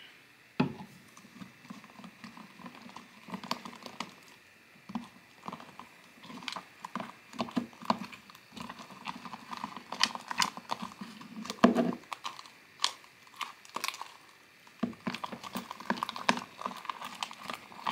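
Plastic spoon stirring thick, sticky fluffy slime in a plastic tub: irregular wet squelching and clicks of the spoon against the container as the freshly activated slime thickens, with one louder knock near twelve seconds in.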